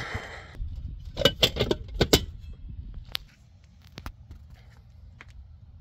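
Metallic clicks and clatter from an outdoor AC disconnect box being handled as its switch is put back on. There are several sharp clacks in the first two seconds, then a few scattered single clicks.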